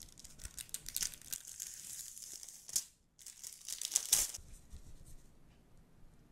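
A thin plastic pouch crinkling as gloved hands handle it. About three seconds in comes a brief lull, then a louder crackling rip as the pouch is pulled open, and it dies down near the end.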